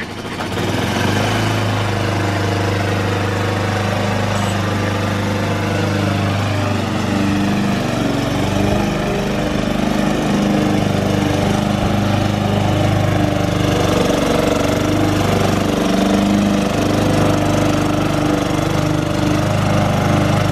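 Gasoline walk-behind lawn mower engine coming up to speed in the first second, then running steadily.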